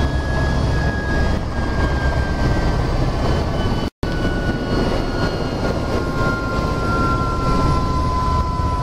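Helicopter turbine and rotor running, heard inside the cabin after landing: a steady low rumble with whines slowly falling in pitch as the engine winds down. The sound breaks off for an instant about four seconds in.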